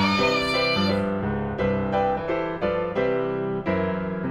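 Background piano music: a melody of single notes over held low chords.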